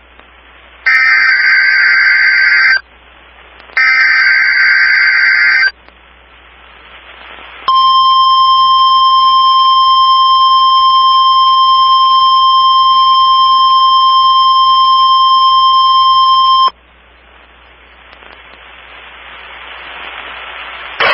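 NOAA Weather Radio Emergency Alert System test signals. Two bursts of the SAME digital header, each about two seconds long, are followed by the steady 1050 Hz warning alarm tone, which holds for about nine seconds and cuts off suddenly. After it comes radio hiss that slowly grows louder.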